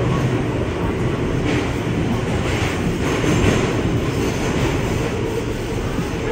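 Alstom R160A subway train running at speed through a tunnel, heard from inside the car: a loud, steady rumble of wheels on rail and running gear, with a heavy low drone.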